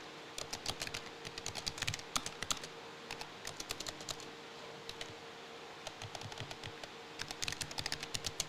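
Typing on a computer keyboard: bursts of quick key clicks with short pauses between them.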